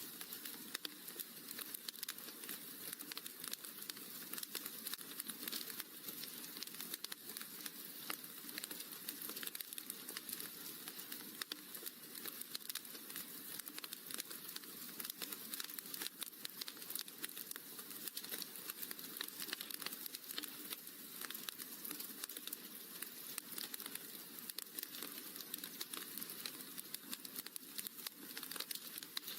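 Wood fire crackling in a fireplace: a dense, steady stream of small pops and snaps.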